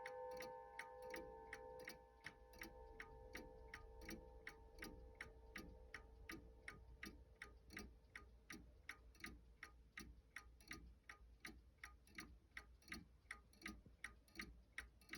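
Antique Seth Thomas four-rod chime clock ticking steadily in an even tick-tock. The ring of its chime rods from the last strike fades away over the first few seconds.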